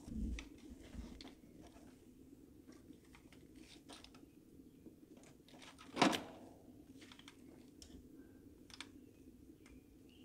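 Small scattered clicks and taps of gloved hands working stuck fuel injectors and the fuel rail on a Mustang engine, with a few dull thumps in the first second and one sharp, much louder knock with a short ring about six seconds in. A faint steady hum runs underneath.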